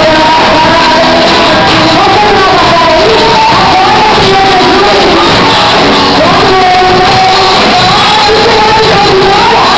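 Loud live gospel music with singing voices holding long, gliding notes over a full accompaniment.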